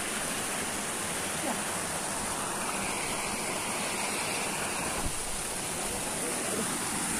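Steady rushing and splashing of pond water churned by aerators.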